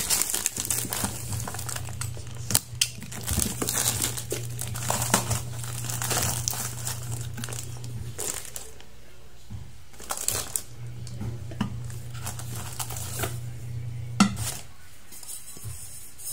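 Plastic packaging wrap crinkling and rustling in irregular handfuls as it is pulled off the parts of a new appliance, with one sharp knock of the plastic parts near the end.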